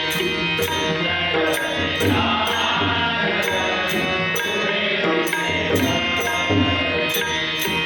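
Marathi devotional abhang music: tabla and pakhawaj drumming under a held melody, with evenly repeating high strikes keeping the beat.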